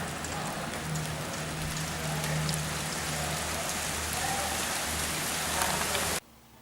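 Antonov An-26's two turboprop engines heard overhead: a steady broad roar with a low propeller drone beneath it. The sound cuts off abruptly near the end.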